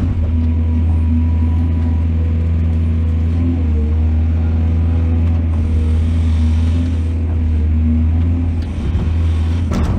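Large diesel engine of a mining excavator running steadily with a deep, even drone, and a short clatter right at the end.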